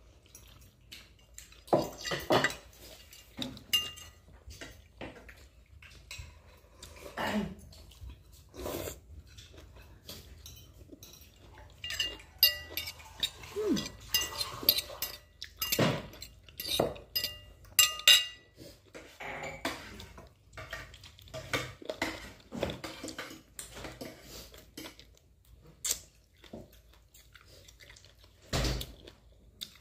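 Utensils clinking and scraping against plates as people eat, in many separate sharp clicks with short gaps between them.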